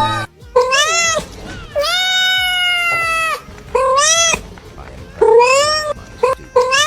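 Cat meowing repeatedly, about six meows with rising and falling pitch. The second meow is long and drawn out, about a second and a half, and the last few are short.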